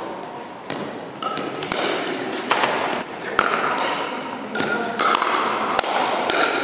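Pickleball rally in a gymnasium: irregular sharp pops of paddles hitting the plastic ball and the ball bouncing on the hardwood floor, with short sneaker squeaks, echoing in the large hall.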